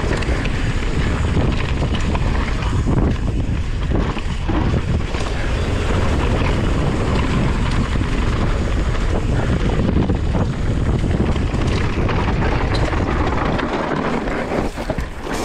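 Wind noise on an action camera's microphone as a Yeti SB150 enduro mountain bike descends a dirt and gravel trail at speed, with tyre rumble and frequent small knocks and rattles from the bike over the bumps.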